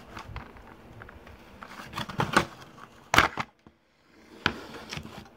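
Hard plastic packaging of a game controller being handled and pried open: a run of light clicks and rattles, with a sharp, loud click about three seconds in.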